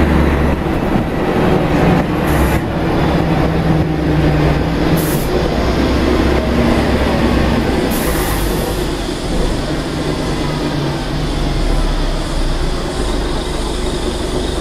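Scania L113CRL bus heard from inside the cabin: its rear-mounted Scania DSC1171 11-litre six-cylinder turbo diesel running under way, a steady low hum over road rumble. Three brief high hisses come about two, five and eight seconds in.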